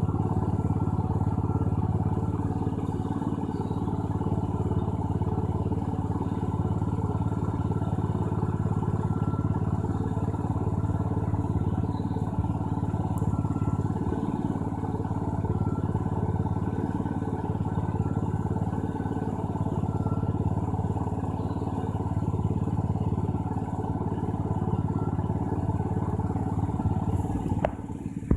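A steady machine hum with faint even tones, unchanging for most of the time, broken near the end by a couple of sharp clicks.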